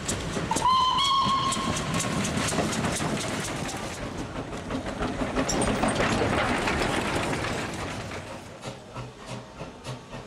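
A Prussian T3 steam tank locomotive (Henschel, 1907) gives one short whistle blast about half a second in. It then runs on with steam hissing, and near the end a steady beat of about three strokes a second.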